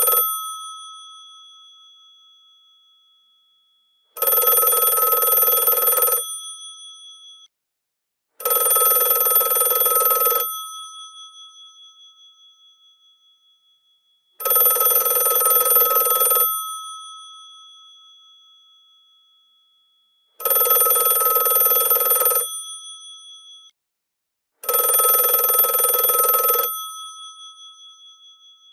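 GPO 746 rotary telephone's electromechanical bells ringing in bursts of about two seconds, five times at uneven intervals. After each burst the struck bells ring on and fade away.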